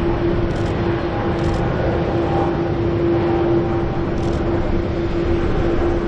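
Boeing 777-200's twin Pratt & Whitney PW4000-series turbofans at takeoff thrust as the airliner rotates and lifts off, a steady heavy roar with a droning tone held through it.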